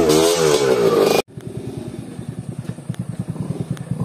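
Dirt bike engine revving hard, its pitch rising and falling, then cut off suddenly about a second in. After that, a trail motorcycle's engine runs at low revs with a quieter, even, quick thumping.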